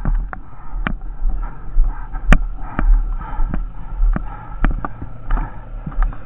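Boots crunching in packed snow, a step about every half second or so, over gusty wind buffeting the microphone.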